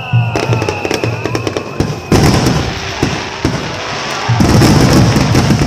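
Aerial fireworks shells bursting one after another, with dense crackling and booms. The loudest stretches begin about two seconds in and again past four seconds. A high whistle falls slowly in pitch over the first two seconds, with music playing underneath.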